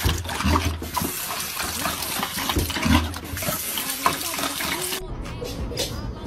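Water running from a bathroom sink faucet into the basin, with a dog lapping at the stream. The running water stops about five seconds in.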